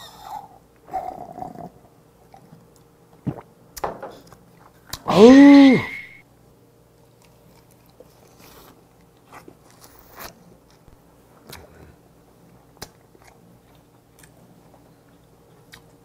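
A man chewing and biting red snow crab close to the microphone: soft mouth noises and scattered small clicks. About five seconds in, a loud drawn-out 'aww' exclamation that rises then falls in pitch.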